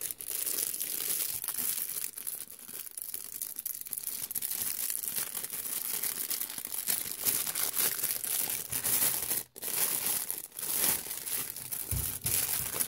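Clear plastic bag crinkling and rustling as hands handle it and pull it open, with a short pause about three quarters of the way through.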